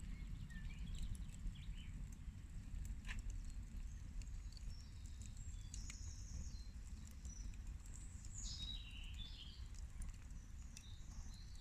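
Birds chirping with a few short calls, one sliding down in pitch about two-thirds of the way through, over a steady low rumble and a few faint clicks.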